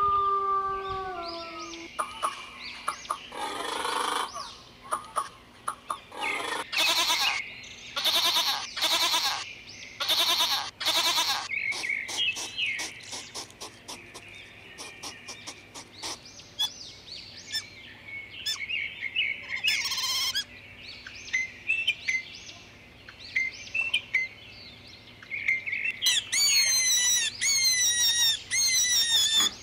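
A run of animal sounds. A wolf's howl falls in pitch and trails off about a second in, followed by short bursts and scattered chirping calls, then rapid high squeals, each falling in pitch, near the end.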